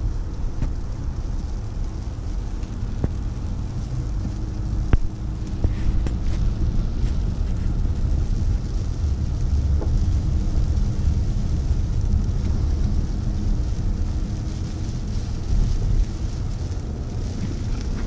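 Car driving slowly along a snow-covered street, heard from inside the cabin: a steady low rumble of engine and tyres, with a sharp knock about five seconds in.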